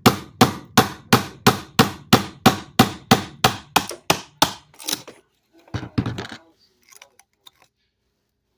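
Hammer blows struck in a fast, even rhythm, about three a second, stopping about five seconds in. They are followed by a short rustle and a few light clicks.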